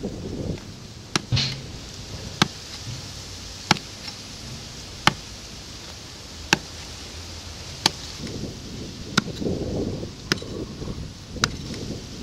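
A small pick striking a hard red earth bank in slow, regular blows: about ten sharp cracks, roughly one every second and a quarter, with a quick double hit about a second in. A low rustling swells between the blows in the later seconds.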